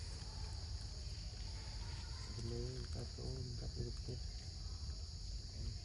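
Insects droning steadily in the forest: a continuous high-pitched buzz. About two and a half seconds in, a voice sounds briefly for a second or so.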